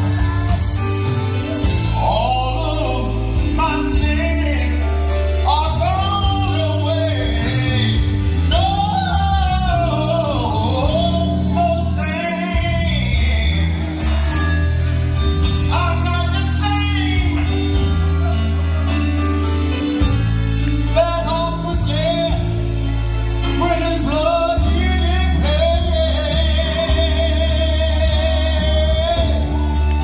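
Church choir singing a gospel song, with held low bass notes underneath.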